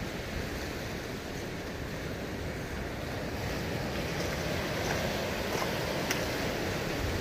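Surf breaking and washing up a beach, with wind on the microphone; the wash gets a little louder about halfway through.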